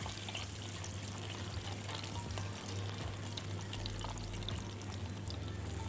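Battered chicken breasts frying in a pan of hot oil: a steady sizzle with small crackles and pops.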